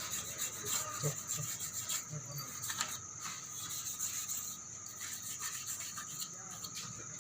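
Rubbing and scraping with many small clicks, from an amplifier circuit board being handled.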